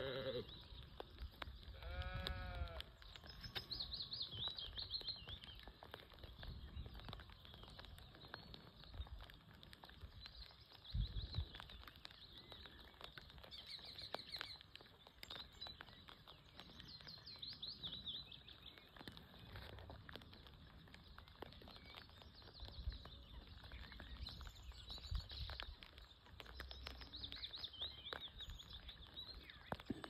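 Light rain ambience with high bird chirps coming now and then, and a single bleat, like a sheep's, about two seconds in.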